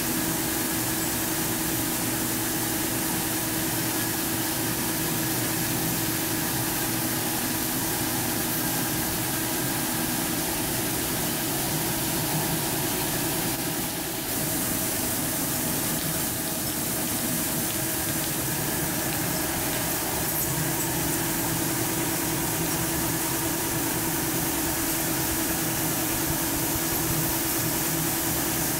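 Steady drone of the running machinery of a polypropylene staple fiber production line: a constant hum with a few held tones over a hiss-like noise, unchanging throughout.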